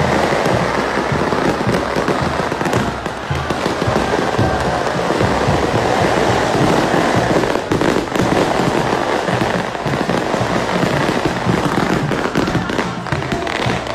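Fireworks and firecrackers crackling and banging continuously, with several sharper bangs standing out, amid loud music.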